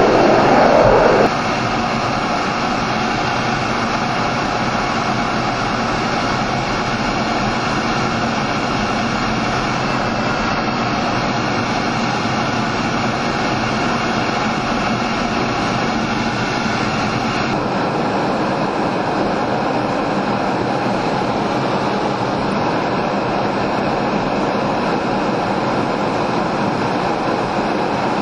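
A MiG-29UB's twin Klimov RD-33 turbofan engines running at high power in the climb, a loud, steady rush of engine and airflow noise. It steps down suddenly a little over a second in, and the highest part of the hiss drops away about two-thirds of the way through.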